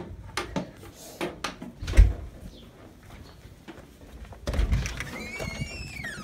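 Knocks, rubbing and one heavy thump from a phone being handled and swung close to its microphone, then a single high whine that rises and falls near the end.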